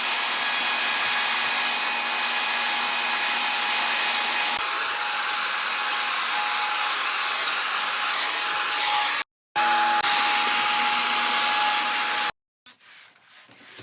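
Vacuum cleaner motor running steadily with a high whine over a loud rush of air. It cuts out abruptly about nine seconds in, comes back briefly, then stops short about twelve seconds in.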